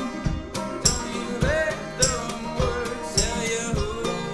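Acoustic string band playing live: two acoustic guitars and a five-string banjo strummed and picked to a steady beat, with a wavering melody line rising and falling on top.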